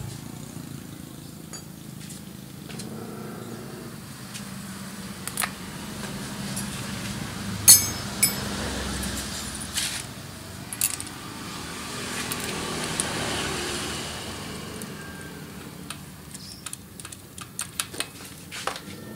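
Spark plug socket wrench clicking and clinking on the spark plug of a Suzuki Smash motorcycle engine as the plug is loosened and pulled out. The clicks are scattered, with more of them near the end.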